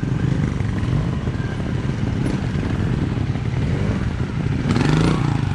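Trials motorcycle engines running at low revs, with one blipped up into a short rising rev near the end.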